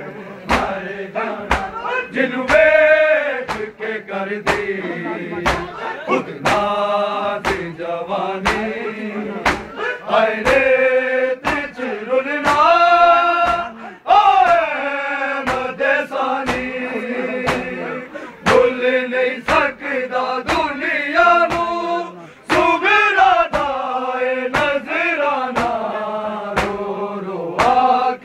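Men's voices chanting a noha, a Shia lament, with drawn-out wavering notes, over a steady beat of sharp slaps from mourners' hands striking their chests (matam).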